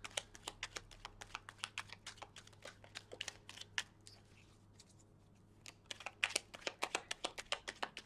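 A deck of oracle cards shuffled by hand: a rapid, uneven run of light clicks as the cards slap together. There is a pause of about a second and a half a little past halfway, then the clicking resumes.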